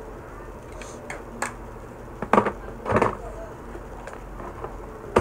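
A few sharp clicks and knocks, the loudest about two and a half seconds in, again at three seconds and at the very end, over a steady low hum.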